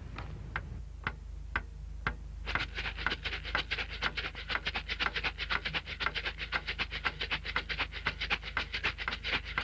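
Film-handling machinery in a cinema projection booth clicking over a low steady hum: sharp ticks about twice a second, then from about two and a half seconds in, a rapid run of clicks about ten a second.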